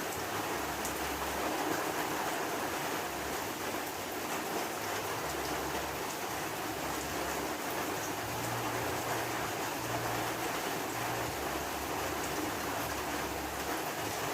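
Heavy rain falling steadily, an even hiss with faint drop patter.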